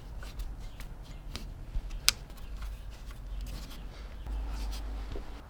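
Light handling sounds of small parts being worked: scattered faint clicks and rustling over a low hum, with one sharper click about two seconds in.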